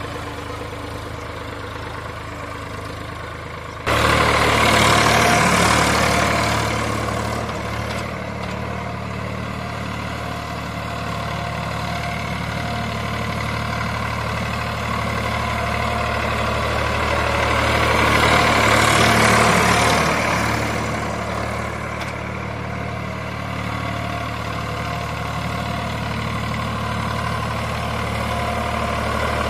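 VST Shakti 9045 DI tractor's diesel engine running steadily as it pulls a five-tyne cultivator through the soil. It gets suddenly louder about four seconds in, then swells louder twice, once soon after and again past the middle.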